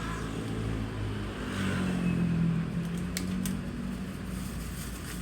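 A motor vehicle engine running close by, a low hum that swells about two seconds in and then eases off. A few sharp clicks come a little after three seconds.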